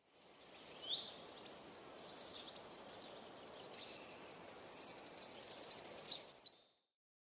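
Small birds chirping: many quick, high, repeated short calls in clusters over a faint outdoor hiss, cutting off near the end.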